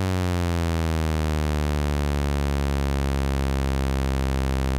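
Roland System-1 synthesizer holding a sustained note that glides slowly down an octave in pitch, portamento set all the way up so the slide takes ages, settling toward the lower note near the end.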